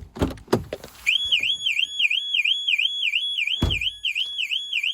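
Car alarm going off about a second in: a fast warbling siren tone sweeping up and down, about three sweeps a second. A few sharp clicks come just before it starts, and a single dull thump about two-thirds of the way through.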